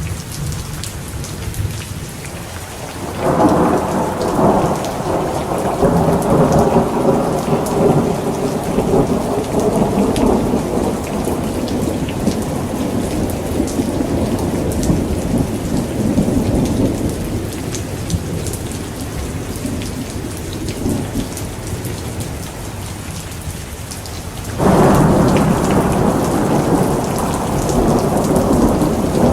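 Thunderstorm: steady rain with two rolls of thunder, the first breaking a few seconds in and rumbling on for a long while as it dies away, the second cracking in suddenly near the end.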